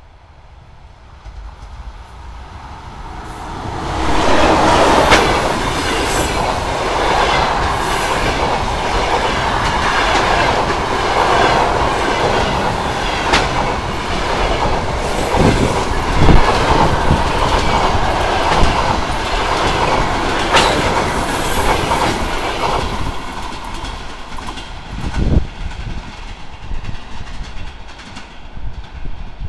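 Passenger train hauled by an EP2K electric locomotive passing close by at speed. The loud rush of wheels and coaches builds over the first four seconds, with sharp knocks from the wheels throughout. It fades away after about 23 seconds.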